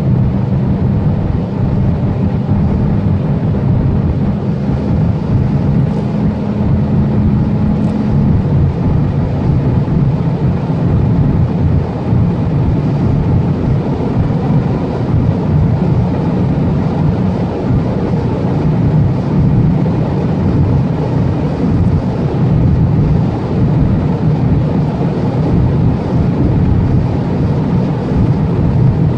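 Turbocharged 1.4 TSI four-cylinder of a Volkswagen Jetta pulling hard at high revs, heard inside the cabin under loud wind and tyre noise at around 190 to 225 km/h. About eight seconds in, the engine's steady drone drops in pitch as the gearbox shifts from fifth to sixth.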